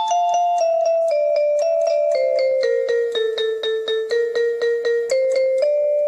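Background instrumental music: a keyboard melody of evenly struck notes, about four a second, stepping down in pitch.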